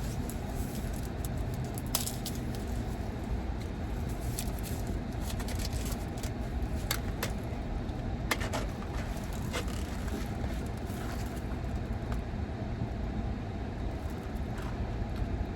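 Car engine idling steadily inside the parked car's cabin, a low even rumble, with a few scattered light clicks and taps of handling.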